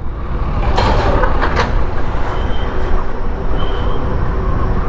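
Steady low rumble of wind and road noise while riding a BGauss B8 electric scooter, with no motor sound heard from the scooter. Two short sharp clicks come about a second in.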